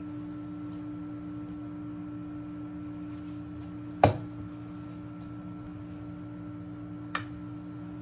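A steady low hum, like a running household appliance, with one sharp knock about halfway through and a lighter click near the end.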